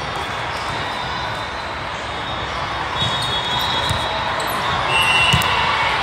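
Volleyball being struck during a rally, a few sharp thuds about halfway in and near the end, over a steady din of voices and play from many courts in a large hall.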